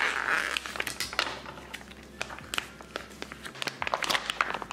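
Plastic shrink-wrap around a rack of raw pork ribs crinkling and rustling as it is handled, loudest about the first second, with scattered light clicks and taps.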